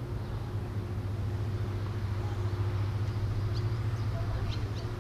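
A steady low engine hum that swells slightly through the middle, with a few faint high chirps in the second half.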